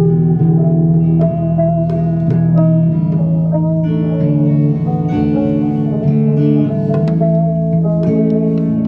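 Band playing an instrumental song intro led by guitar over a bass line, with steady strummed chords and plucked notes.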